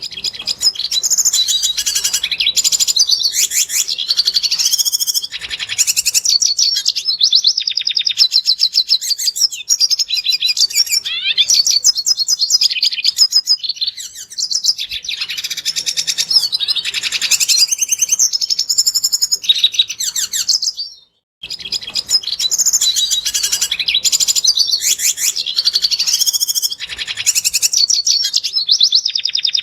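Red siskin singing: a long, fast twittering song of rapid trills and chirps. It breaks off for a moment about two-thirds of the way through, then resumes.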